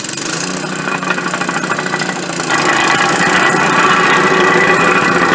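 Gas-engine vibratory plate compactor running. It grows louder about two and a half seconds in, as the vibrating plate begins compacting the concrete pavers.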